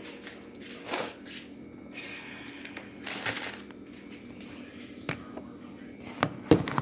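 Kitchen handling sounds: a couple of short rustling, crinkling bursts and a few sharp knocks, as of paper oatmeal packets and a bowl being handled, over a faint steady hum.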